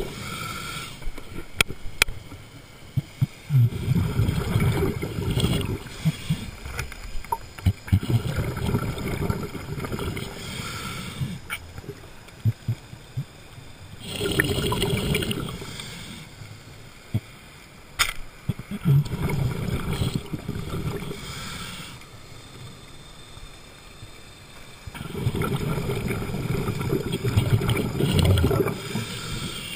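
Underwater diver's breathing through a regulator: about five surges of exhaled bubbles gurgling past the mask, each a few seconds long, with quieter stretches between. Scattered sharp clicks run through it.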